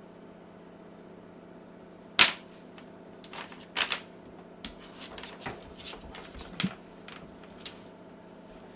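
A shiba inu puppy playing alone with a hard chew bone on a wooden floor: one sharp clack about two seconds in, then a run of irregular clicks and taps as the bone knocks against the boards.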